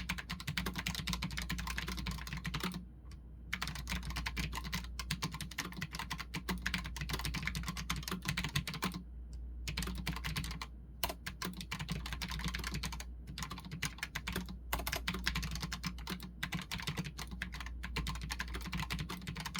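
Redragon K618 Horus low-profile mechanical keyboard being typed on quickly: a dense, continuous run of key clicks broken by a few short pauses, over a steady low hum.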